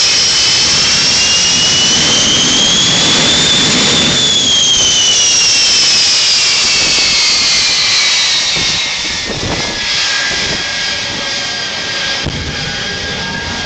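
Shockwave jet truck's three jet engines running at high power, a loud whine climbing in pitch for about four seconds and then sliding back down. The level eases off after about eight seconds as the engines wind down.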